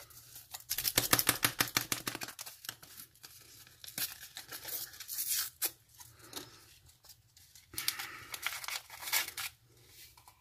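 Paper MRE creamer packet being torn open by hand, its paper tearing and crinkling in three bouts of rapid rustle.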